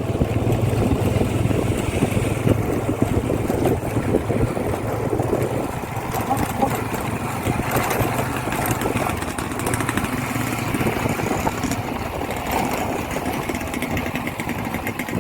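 Motorcycle engine running steadily with a low, even hum.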